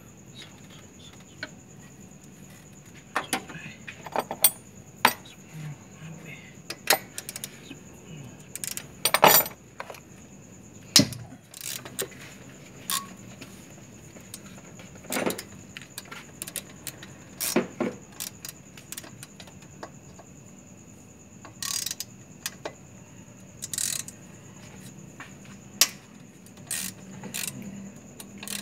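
Metal hand tools clinking and tapping in scattered, irregular strokes, with a few louder knocks among them.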